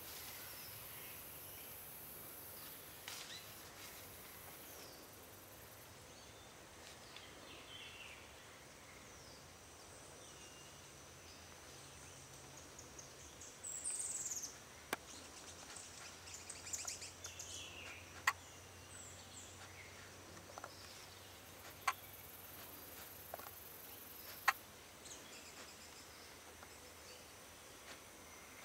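Outdoor forest ambience: a steady hiss with scattered high chirps. About halfway through comes a short burst of high, falling calls, and a few sharp clicks are heard in the second half.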